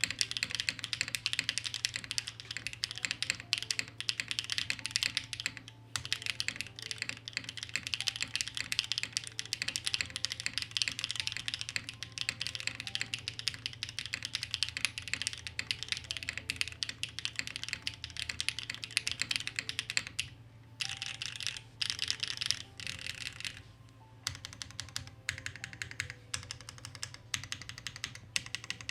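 Fast continuous typing on a Neo75 Cu mechanical keyboard with BCP-style linear switches, a dense run of key clacks broken by two short pauses near the end.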